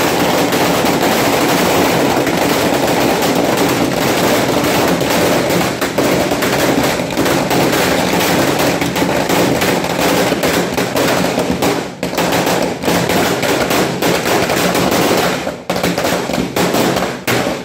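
Firecrackers exploding in a dense, continuous barrage of rapid, loud bangs, with brief lulls about twelve and fifteen seconds in.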